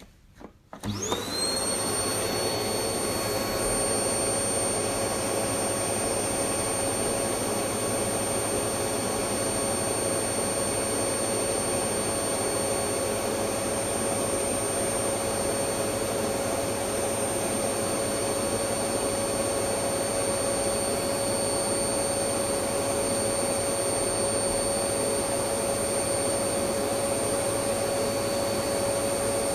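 Electric vacuum cleaner switched on: a couple of faint clicks, then the motor spins up about a second in, its whine rising in pitch, and runs steadily with rushing air and a thin high whine.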